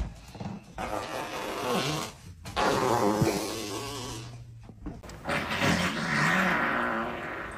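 A series of fart sounds, several separate ones of uneven length, some drawn out with a wavering pitch.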